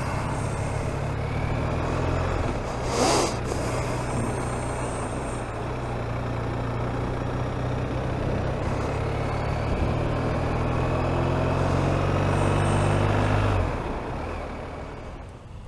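BMW R 1250 RT boxer-twin motorcycle engine running steadily on the move, under a steady rush of wind and road noise. A brief louder noise comes about three seconds in, and the sound fades away near the end.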